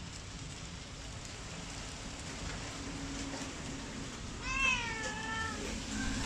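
A domestic cat meowing once, about four and a half seconds in: a single call about a second long that falls slightly in pitch.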